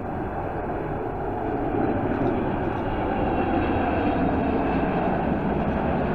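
Jet engines of a twin-engine widebody freighter flying low overhead with its landing gear down, a rumble that grows steadily louder.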